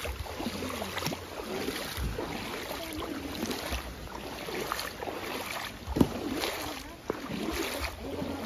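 Footsteps wading through a shallow, sandy river: water sloshing and splashing around the feet, about one step a second, with one sharper knock about six seconds in.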